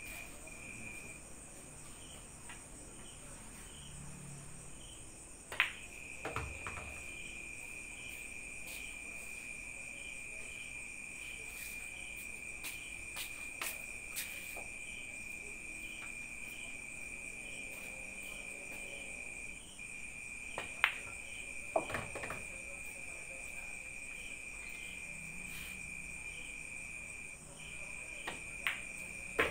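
Crickets trilling steadily throughout, with a faint regular pulse. Sharp clicks of pool balls cut through: cue striking cue ball and balls colliding about five and a half seconds in, a couple more around two-thirds of the way through, and one more at the very end.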